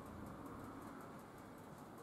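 Quiet workshop room tone with a faint, fast, high ticking, about four ticks a second.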